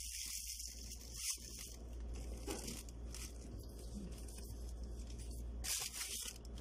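Clear plastic packaging rustling and crinkling as the parts of a microphone kit are handled and lifted out, louder for a moment near the end.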